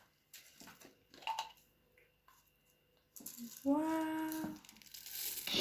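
Faint small clicks and handling noises for the first few seconds. About four seconds in, a voice holds a drawn-out note for under a second, and a short hiss-like burst follows near the end.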